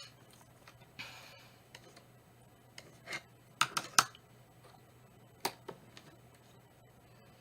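Scattered sharp clicks and taps, a cluster of three around the middle and one more a little later, with a couple of short soft rustles near the start: small makeup items being handled.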